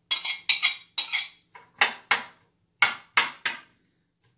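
Metal spoon clinking and scraping against a ceramic plate and a frying pan as chopped onion is scraped into the pan and stirred: a run of sharp clinks with short ringing, in quick clusters with brief pauses.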